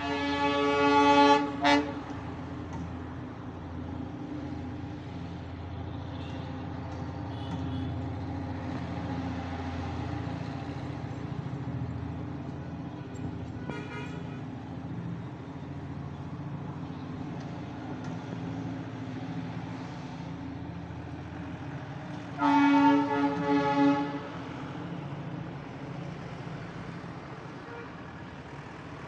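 Darjeeling Himalayan Railway toy train sounding its whistle: a long toot at the start, a faint short one about halfway, and another toot of about a second and a half a little after twenty seconds in, over a steady low rumble.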